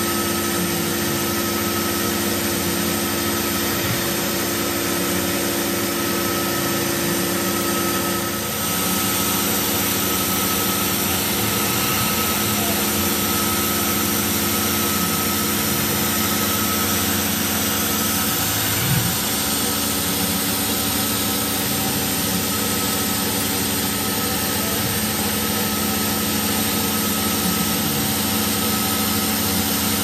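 CNC milling machine cutting aluminium with a small ball end mill under coolant mist: a steady spindle whine over the hiss of the mister. Low tones slide up and down every few seconds as the cutter works along the toolpath.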